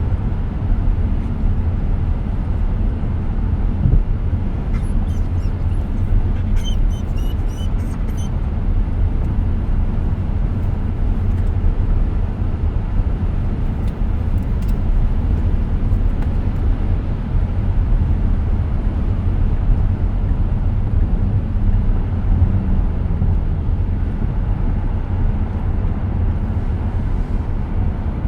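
Road and tyre noise heard inside the cabin of a 2023 Tesla Model X at highway speed: a steady low rumble with no engine note. A few faint high chirps come through about six to eight seconds in.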